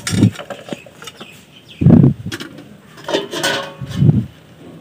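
Three short dull thumps about two seconds apart, with light clinking and rustling between them, as steel utensils are handled and set down.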